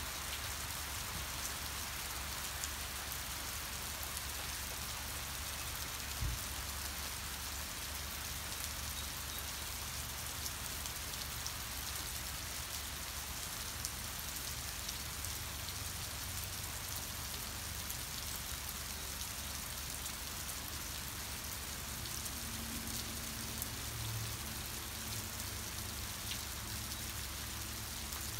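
Steady rain falling, an even hiss of drops on the surroundings, over a low steady rumble. A single knock sounds about six seconds in.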